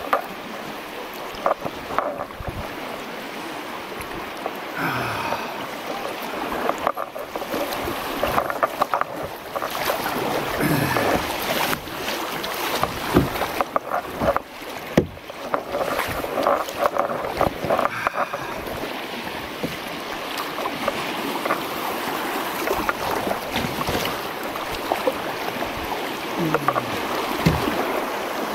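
Creek water rushing and splashing around a paddled kayak, with irregular knocks and splashes from the paddle and hull.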